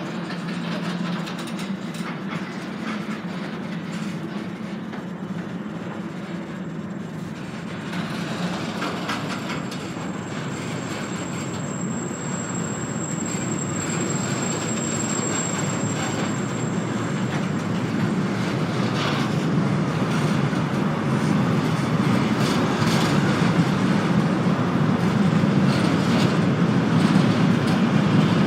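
Freight train running on the rails, a steady rumble with the clickety-clack of wheels over rail joints, growing louder. A thin high whine is heard through the middle.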